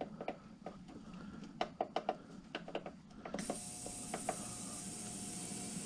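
Benchtop ultrasonic cleaner being restarted: short clicks from its control panel, then about halfway through a steady high hiss with a faint hum as the cleaner starts running. It had cut out early, which the owner suspects is overheating.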